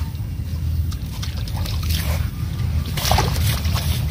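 A hooked fish thrashing and swirling at the water's surface, with water sloshing and splashing, strongest about two and three seconds in, over a steady low rumble.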